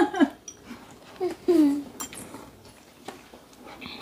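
Metal spoons clinking against bowls during a meal: a few separate sharp clinks, the last one near the end ringing briefly. A child's voice is heard briefly at the start and again about a second and a half in.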